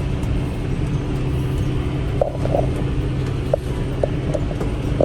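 Farm tractor engine running steadily, with a few short light knocks about two to three and a half seconds in.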